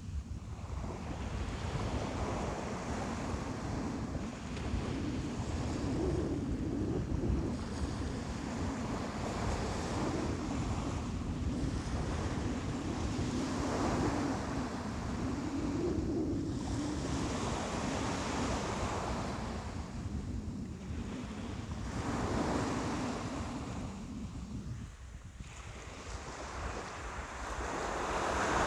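Ocean surf: waves breaking and washing in a continuous hiss that swells and eases every few seconds.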